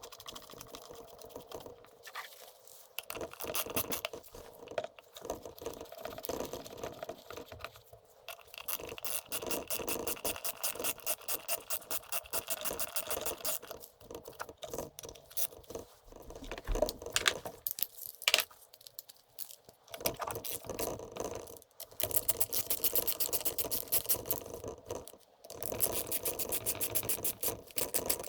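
Hand ratchet wrench clicking in fast, even bursts of a few seconds as fasteners are turned, with scattered knocks of tools and metal parts between the bursts.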